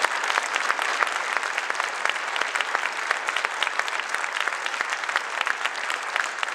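A large audience applauding: many hands clapping in a dense, steady patter.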